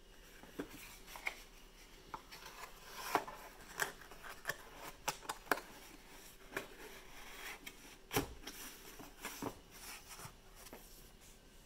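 Corrugated cardboard mailer box being folded shut by hand: flaps scraping and creasing, tabs tucking in with sharp clicks, and a dull knock about eight seconds in as the box meets the table.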